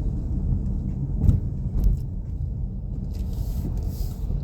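Road noise inside a moving Nissan Pathfinder's cabin: a steady low rumble, with two sharp knocks a little over a second in and just before two seconds, and a brief hiss near the end.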